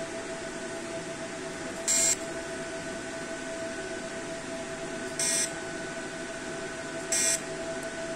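Fractional CO2 laser machine giving three short, high-pitched emission beeps, about two and five seconds in and near the end, each marking a scan being fired through the handpiece onto the skin. A steady hum from the machine runs underneath.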